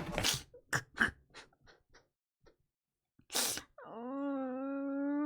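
A few short sharp clicks fading away, a brief breathy burst, then a person's long drawn-out cry held at one steady pitch for the last second and a half.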